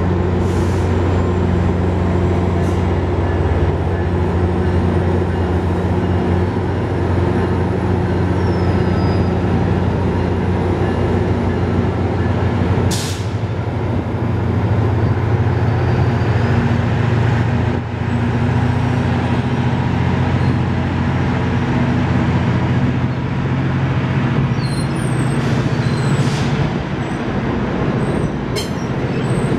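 GO Transit diesel locomotive 648 running steadily at the platform; its engine pitch steps up slightly about halfway through. A short burst of air hiss comes just before that.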